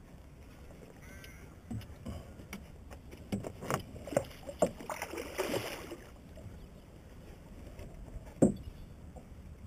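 Knocks and splashes of water around a small boat: a run of sharp clicks and knocks with a rush of splashing about five seconds in, and one loud knock near the end.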